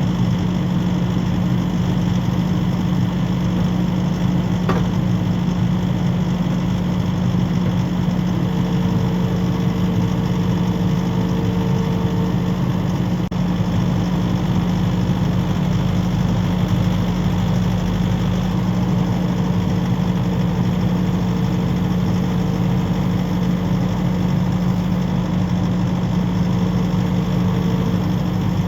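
Skid steer engine running steadily at an even speed, with no revving.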